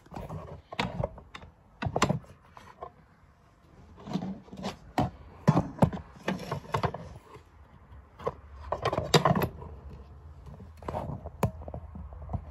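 Irregular knocks, clatter and rubbing of objects being handled and moved about in a small, cluttered shed, mixed with handling noise from the phone. A faint low hum comes in about two-thirds of the way through.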